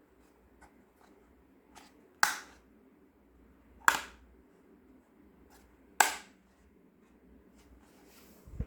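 Small hard plastic toy kitchen pieces being handled and set down: three sharp clacks about two seconds apart, with fainter ticks between and a low thump near the end.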